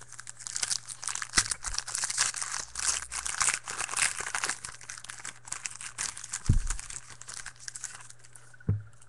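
Trading-card pack wrapper crinkling and tearing as a fresh pack of baseball cards is opened and handled, with a dull thump about six and a half seconds in and another near the end.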